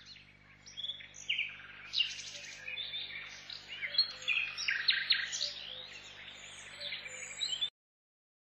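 Small birds chirping and twittering, quick high calls coming thick and overlapping, over a faint steady low hum; everything cuts off abruptly near the end.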